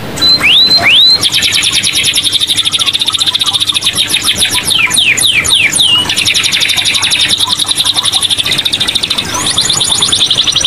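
Caged canary singing loudly without a break. It opens with two short rising-and-falling whistles, then goes into a long rapid trill with a run of quick downward-sweeping notes in the middle.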